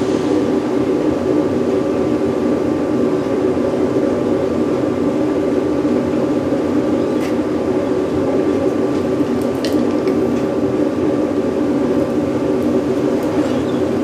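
Forced-air propane furnace burner running steadily, its microwave-oven blower keeping up a constant rushing noise with a faint steady whine. A few light clicks sound partway through.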